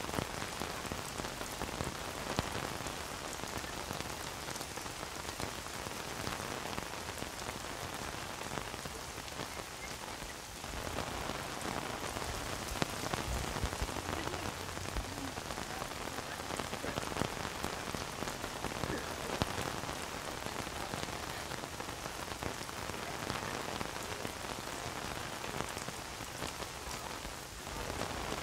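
Steady rain falling on an umbrella overhead, many single drops ticking on the canopy over the hiss of rain on wet paving. The sound dips briefly twice.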